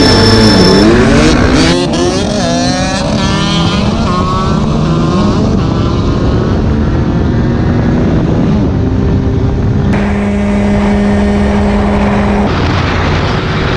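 Dirt bike engines revving: over the first few seconds the pitch climbs and drops several times as the bike accelerates through the gears, with another bike close by at the start, then the engine holds steady revs for a few seconds near the end.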